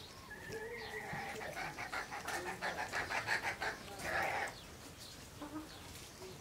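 An animal calling: one drawn-out call with a rapid pulsing wobble, lasting about four seconds and loudest just before it stops.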